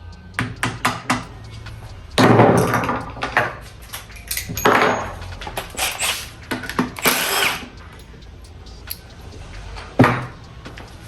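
Power tool run in several short bursts of about a second each, with light clicks and a sharp knock from metal gearbox parts being handled.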